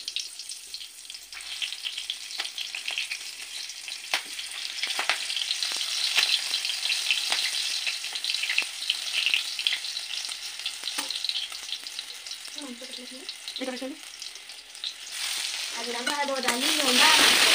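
Hot oil sizzling and crackling in a wok on a gas burner, with a spatula scraping now and then. Near the end the sizzle jumps much louder and denser, as sliced onions go into the oil.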